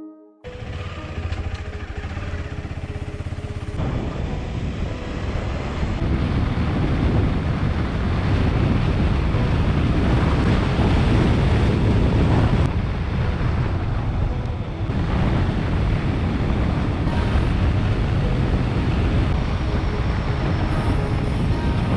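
KTM 250 Adventure's single-cylinder engine running at road speed under heavy wind rush on the microphone, getting louder about four seconds in.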